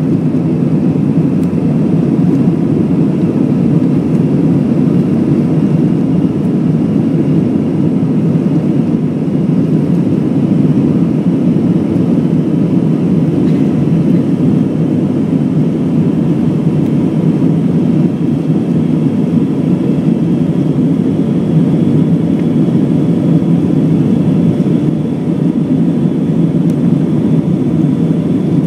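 Cabin noise inside an Airbus A319 airliner in the climb after takeoff: a steady, loud jet-engine and airflow rumble, with a faint high whine that slowly rises in pitch.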